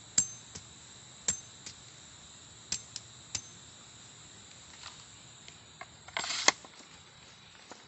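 Split-bamboo stakes being handled and pushed into the soil: a few sharp clicks and taps, some with a short high ring. About six seconds in there is a louder brief rustling crunch.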